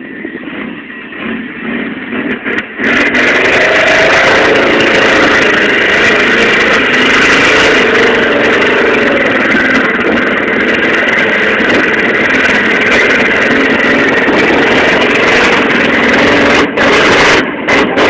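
Lifted four-wheel-drive SUV's engine running at high revs, loud and steady, as it pushes through a mud pit. It starts suddenly about three seconds in and breaks off briefly near the end.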